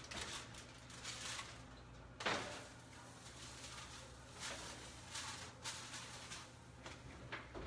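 A foil-covered baking dish being put into a kitchen oven: the oven door and metal rack handled, with one sharp knock about two seconds in, then lighter knocks and scrapes.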